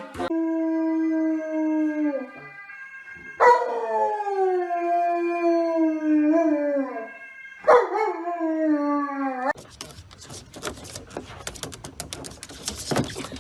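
A dog howling: three long howls, each held on one pitch and then sliding down at the end, the middle one the longest. In the last few seconds the howling gives way to a busy clatter of clicks and rustling.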